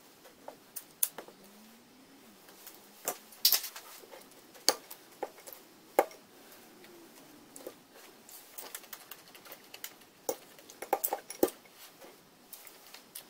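Fork clicking and scraping against a ceramic bowl while digging into crumbly cake, with irregular sharp clicks every second or so.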